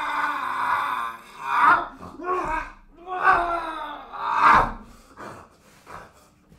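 A man's voice crying out and groaning in long, loud pitched cries as he acts out a werewolf transformation. The cries peak several times and die down to short, quieter grunts in the last second or two.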